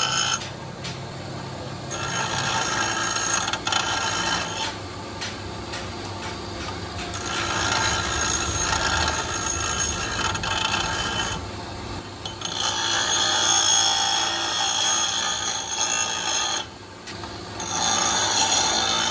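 Abrasive wheel of a bench grinder grinding a steel PTO shaft yoke, a high ringing screech with sparks flying. The screech drops away briefly four times as contact is broken, and the motor hum carries on underneath.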